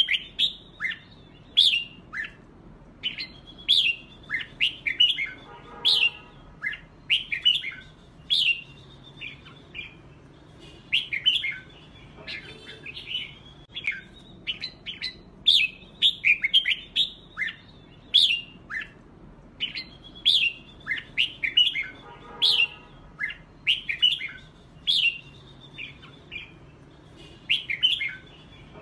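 Red-whiskered bulbul song: quick, repeated phrases of short sweeping whistled notes, the lively competitive singing used to stir other bulbuls into answering. Twice a brief lower, buzzy note cuts in.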